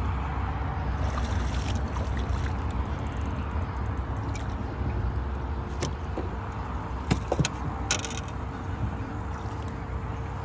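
A hooked largemouth bass splashing and thrashing at the surface beside a boat while it is reeled in, with a spell of splashing about a second in and a few sharp splashes and knocks between about six and eight seconds. A steady low rumble runs underneath.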